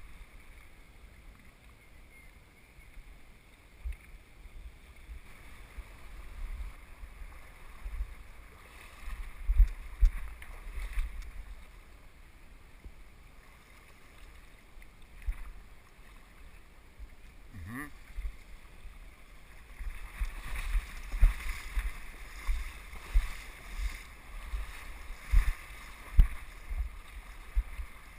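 Shallow river water sloshing and splashing around someone wading through it, over the steady rush of the current, with irregular low thumps of wind and handling on the microphone that grow busier in the second half.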